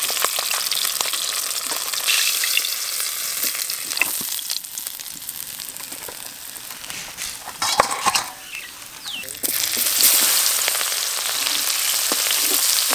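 Hot oil sizzling in a steel kadai as fried fish is lifted out with a metal spatula, with a few sharp clinks of metal on metal near the middle. The sizzle is quieter midway, then jumps louder about two-thirds of the way through as sliced onions go into the hot oil.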